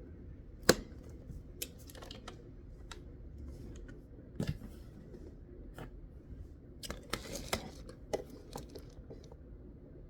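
Hard plastic vacuum parts and packaging being handled: scattered clicks and light knocks with some rustling, a sharp click less than a second in and a dull knock about halfway.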